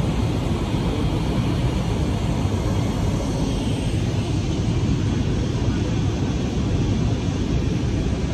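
Steady jet airliner cabin noise: the drone of the engines and rushing air heard from inside the passenger cabin, even and unbroken, with most of its weight in the low range.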